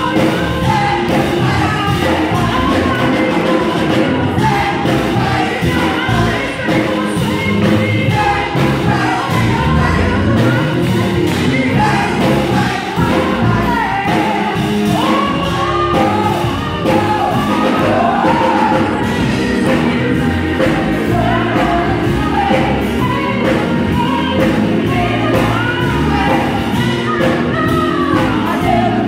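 Gospel choir of women's voices singing together, loud and continuous.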